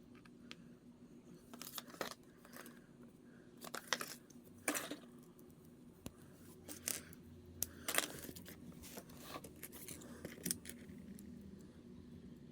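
Small plastic kit parts clicking, snapping and rattling at irregular intervals as building-block figures are put together, over a steady low hum.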